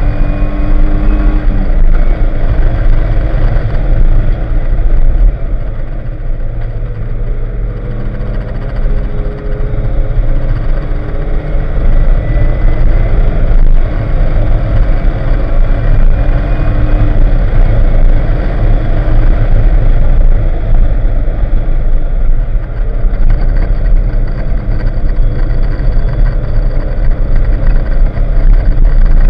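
Porsche 944's 2.5-litre four-cylinder engine heard from inside the cabin while being driven hard around a road course. The engine note rises and falls, with a couple of brief quieter spells, under heavy road and wind noise.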